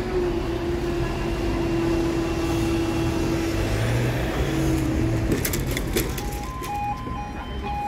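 A steady vehicle-like hum, then a quick cluster of clicks about five and a half seconds in. Near the end the level crossing's electronic warning alarm starts: two pitches alternating in short on-off beeps.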